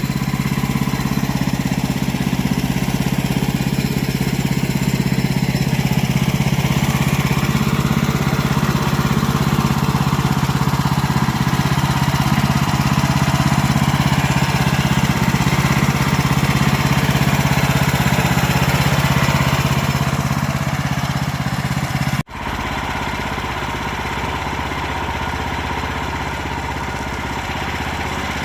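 Woodland Mills band sawmill's gas engine running steadily as the blade cuts through hard white oak. The sound breaks off for an instant about three-quarters of the way through and carries on a little quieter.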